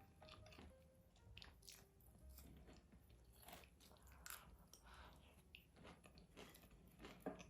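Crisp crunching and chewing of deep-fried king oyster mushroom pieces with a crackly fried coating, heard as a string of irregular short crunches.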